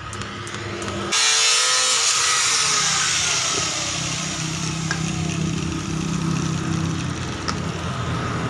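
A motor vehicle passing close by. It starts suddenly about a second in, with a pitch that falls over the next couple of seconds, then settles into a steady engine rumble.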